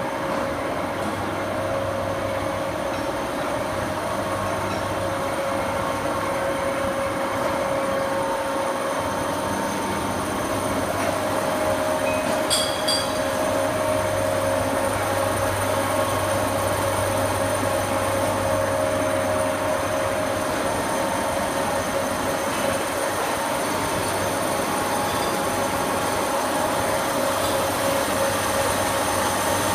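Machine tools running in an axle-machining workshop: a steady mechanical din with a low hum and several steady whining tones. A couple of brief high metallic clinks about twelve seconds in.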